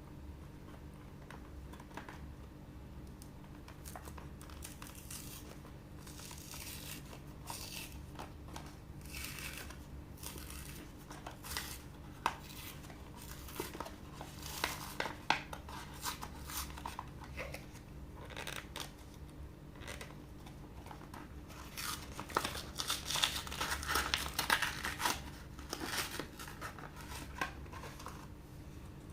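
Toy packaging being opened by hand: tearing and crinkling with small clicks, in irregular bursts that are busiest about three-quarters of the way through.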